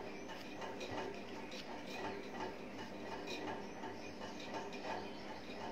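Irregular light ticks of a fineliner pen tip striking and scratching paper in short strokes, a few per second, over a steady low hum.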